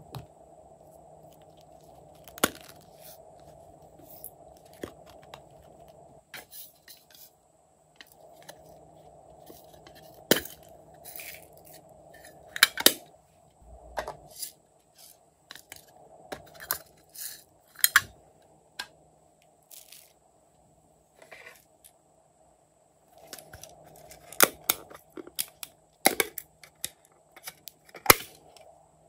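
Small plastic toy cases being handled and opened, with sparse sharp clicks and crackles as sprinkles and beads drop onto slime in a glass bowl, over a faint steady hum.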